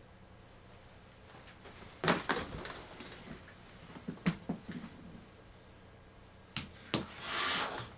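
Handling noises: a knock about two seconds in followed by rustling, scattered light clicks, then two sharp clicks and a short burst of rustling near the end, as a person settles at a desk and handles a phone.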